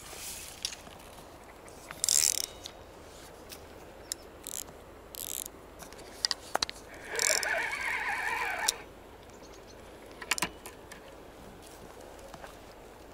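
Spinning fishing reel being cranked for about two seconds, its gears whirring, with scattered clicks and handling knocks from the rod and reel before and after.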